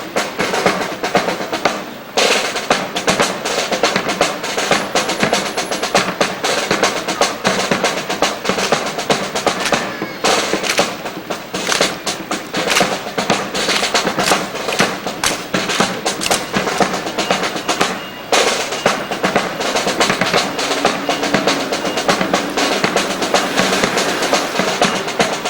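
Military snare drum cadence with drum rolls and some bass drum, keeping the beat for a rifle drill display, with a dense run of sharp strikes.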